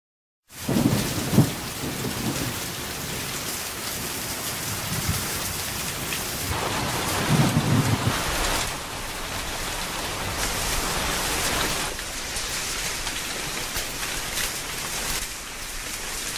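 Heavy rain falling steadily, with low rumbles of thunder about a second in and again around seven seconds in.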